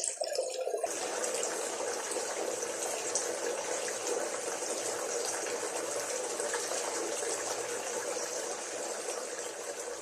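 Water running and splashing steadily. The sound changes about a second in, from a choppier splashing to an even, continuous rush.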